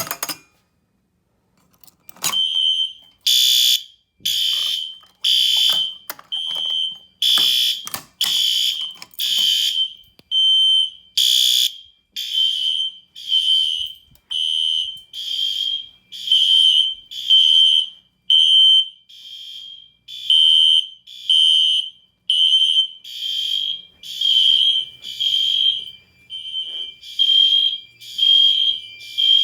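Fire alarm horn strobes on a fire alarm system set off from a pull station. A sharp snap as the station is pulled, then after about two seconds several loud, high-pitched horns start pulsing, roughly one blast a second, out of step with each other.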